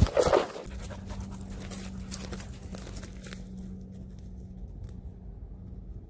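German shorthaired pointer panting close by, with a loud knock at the very start and faint brush crackle over the first few seconds; a faint steady hum runs underneath.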